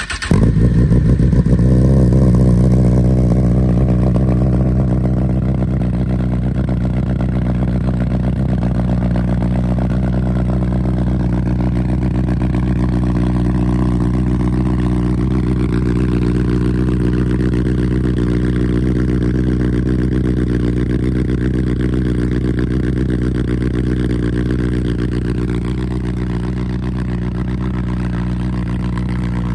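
2021 Honda CB1000R's inline-four engine breathing through a CS Racing full exhaust, catching on a cold start. It runs a little louder for the first few seconds, then settles into a steady idle.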